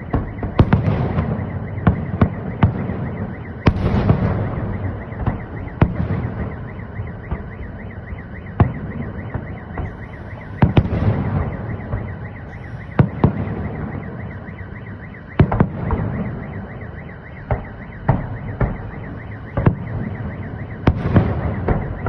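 Salute fireworks: a string of sharp bangs from shells bursting, roughly one or two a second. Heavier rolling booms come at about a second in, about four seconds in, around the middle and near the end.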